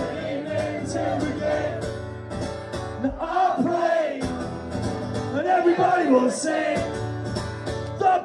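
Live solo acoustic performance: a male voice singing over a strummed acoustic guitar.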